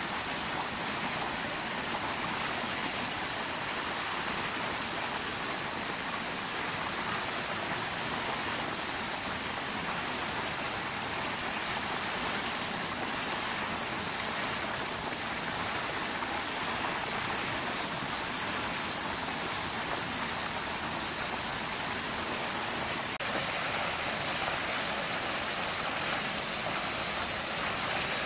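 Steady, unbroken high-pitched hiss over an even rushing background noise, with no distinct events.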